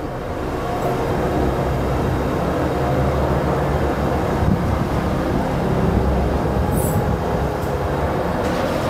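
Steady low rumble of the cooking fire under a huge pot of boiling rice porridge (nombu kanji).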